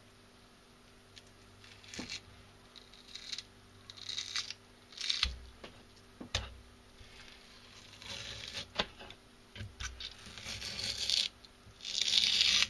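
Thin skin being peeled by hand off a raw horse mackerel fillet on a cutting board: scattered soft scraping and tearing noises with a few light knocks, and a louder rustling stretch near the end.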